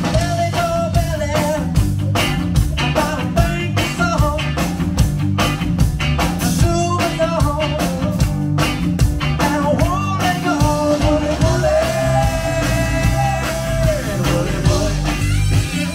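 Live smooth-jazz band playing, with drums, bass, electric guitar, keyboards and saxophones, and a man singing the lead line into a microphone, holding one note for about two seconds near the end.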